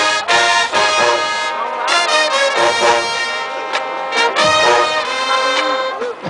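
Marching band playing, its brass section loud and full, with trombones and trumpets carrying the melody and some notes sliding up into the next.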